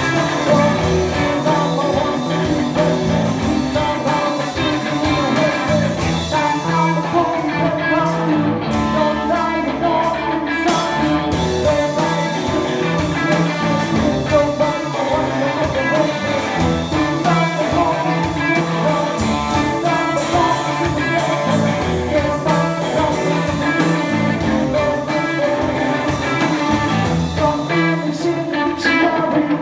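Live band playing a song with singing and guitar over a steady beat.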